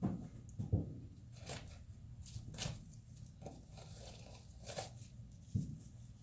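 Scattered light knocks, clicks and rustling from small parts being handled on a bench, with a few sharper knocks right at the start, about a second in, and near the end.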